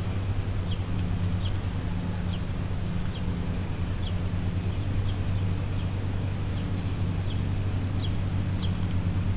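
Steady low machine hum, with a small bird repeating short falling chirps a little more than once a second.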